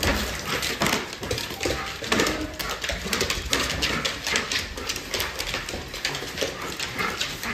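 Dog claws clicking and skittering on a hardwood floor as a golden retriever jumps and scrambles around a person in an excited greeting.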